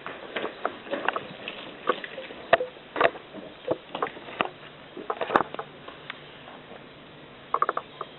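Cat chattering at birds: short clicking and chirping sounds in irregular bursts, with a quick run of clicks near the end.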